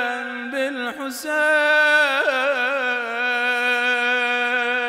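A man chanting a Shia devotional recitation into a microphone. He holds long sustained notes that break briefly about a second in, then carry wavering melismatic turns before settling back onto a steady held pitch.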